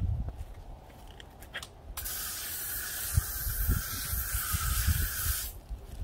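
A steady hiss of water being sprayed onto concrete to wet it and keep the grinding dust down. It starts about two seconds in, runs for about three and a half seconds, and cuts off suddenly.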